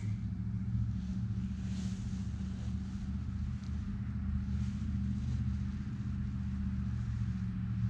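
A steady low engine-like hum, even and unbroken.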